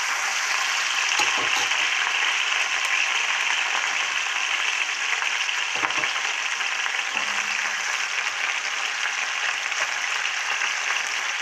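Pieces of goat heart sizzling steadily in hot vegetable oil in a thick-walled cast-iron frying pan, with a couple of faint knocks from a metal spatula stirring them.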